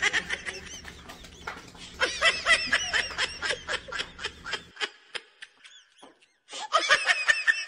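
High-pitched laughter: a rapid run of giggling syllables that fades out around five seconds in, then starts again briefly near the end.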